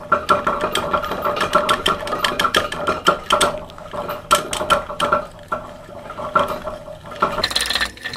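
Spinning fishing reel cranked fast by hand, its gears whirring with rapid clicking as line is wound on from a spool turning in a vise. Near the end the whirr shifts to a higher pitch.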